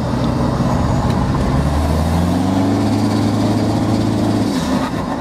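Toyota Innova's 2KD four-cylinder turbodiesel, fitted with an upgraded turbo, pulling under acceleration and heard from inside the cabin. A steady engine note is joined about two seconds in by a rising note, which drops away near the end as the throttle eases.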